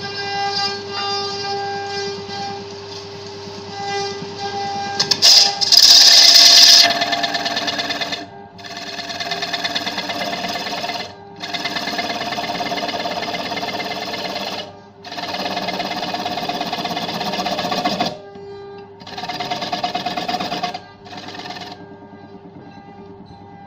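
Wood lathe spinning a wooden disc while a hand-held turning tool cuts into it: a loud hissing cut about five seconds in, then repeated cutting passes of about three seconds each, broken by short pauses as the tool lifts off. Near the end the cutting stops and the lathe runs on more quietly.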